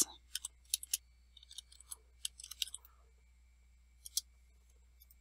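Computer keyboard typing a command: a run of faint, irregular keystroke clicks, then a pause and one last keystroke about four seconds in.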